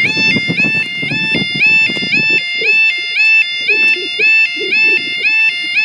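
Level crossing audible warning alarm sounding: a two-tone yelping warble that alternates between two high pitches about three times a second, the signal that the barriers are coming down for a train. A low rumble runs under it for the first couple of seconds.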